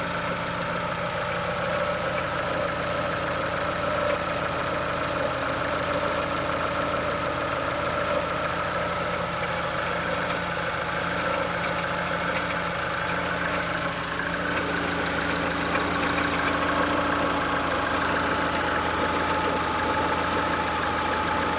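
E-Tec II 16-valve four-cylinder engine idling steadily, with the strange scraping "chirping" noise from the timing-belt side that the owner is trying to identify.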